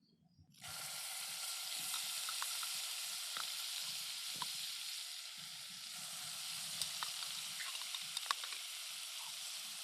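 Butter sizzling in a hot pan as it browns: a steady frying hiss with scattered crackles and pops that starts suddenly about half a second in.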